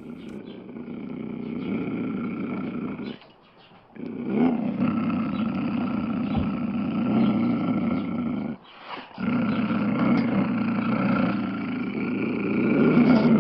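Big cat growling and roaring in three long bouts, with short breaks about three seconds and eight and a half seconds in.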